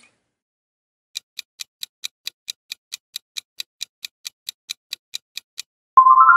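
Countdown-timer sound effect: clock-like ticks, about four to five a second, for roughly four and a half seconds. Near the end a quick rising run of chiming notes starts.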